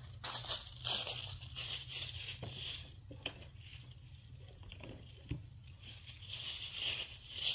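Dry leaves crunching and rustling in irregular crackly bursts, with a few sharp clicks over a steady low rumble.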